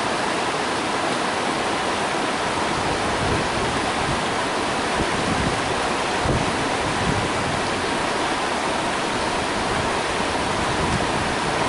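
Shallow rocky stream flowing over and around boulders, a steady, unbroken rush of water.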